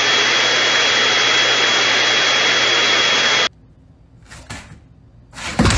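A small handheld electric appliance with a motor and fan runs steadily: a rushing of air under a high steady whine. It cuts off abruptly about three and a half seconds in, a few faint knocks follow, and a loud sharp smack comes at the very end.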